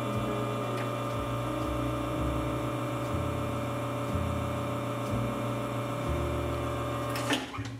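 Lelit Bianca V3 espresso machine's rotary pump running steadily during a detergent backflush cycle, cutting off about seven seconds in.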